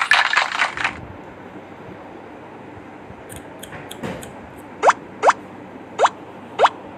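Dense crackling, clapping-like noise that cuts off about a second in, then a low hum and four short rising blips, like water-drop plops, in the second half.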